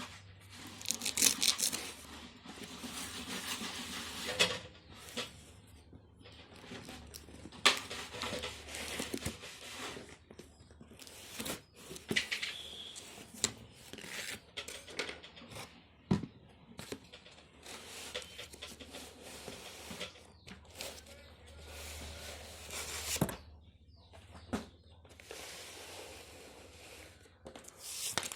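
Cardboard and plastic doll packaging being torn open and crinkled by hand: irregular rustling and tearing, with scattered sharp snaps and clicks.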